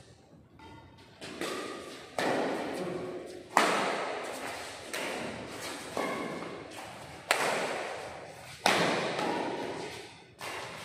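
Badminton rackets striking a shuttlecock back and forth in a doubles rally: about eight sharp hits, roughly a second or a second and a half apart, each ringing on in the echo of a large hall.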